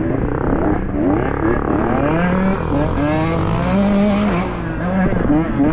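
Dirt bike engine revving hard, its pitch climbing in quick repeated sweeps as the throttle is worked on and off.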